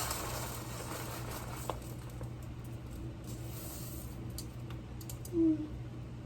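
Dry rice being scooped and poured into a measuring cup, a hissing patter at the start and again about halfway through, over a steady low hum. Near the end comes one brief, low sound that slides down in pitch, like a voice.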